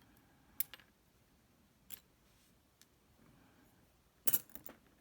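Light clicks and taps of a small metal lock pin being picked out of a parts tray: a pair about half a second in, one near two seconds, and a louder cluster of several near the end.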